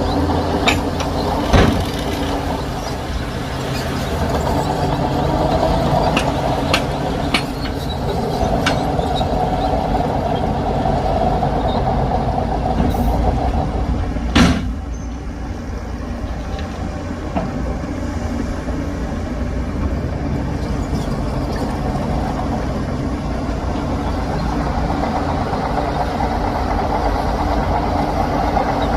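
Heavy diesel earthmoving machinery running steadily, with scattered metallic clanks in the first several seconds and one sharp, loud burst about halfway through.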